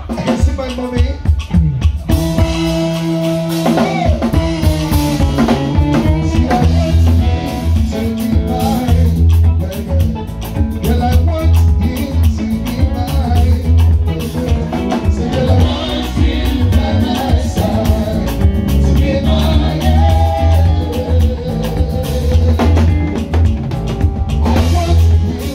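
Live band playing: a drum kit keeps a busy beat, and about two seconds in a heavy bass line and the rest of the band come in under a man's lead vocals.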